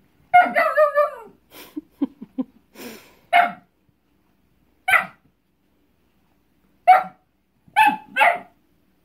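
A dog barking at a cat hidden under a rug: a longer, wavering bark first, then a string of short, sharp barks at irregular gaps.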